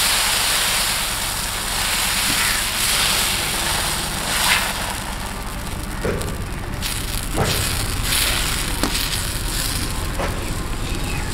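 Corn flour batter sizzling on a hot iron tawa over a chulha fire, with a steady hiss and crackle. A few sharp clicks come through as a steel ladle cup spreads the batter into a round.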